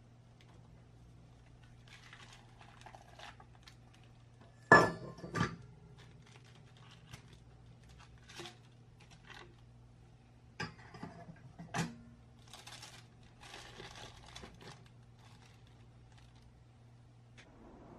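A round metal cake tin knocking against a wire cooling rack and wooden board as a freshly baked sponge cake is turned out of it, with the parchment paper lining rustling and crinkling. The loudest sound is a pair of sharp knocks about five seconds in, with a further run of knocks near the middle.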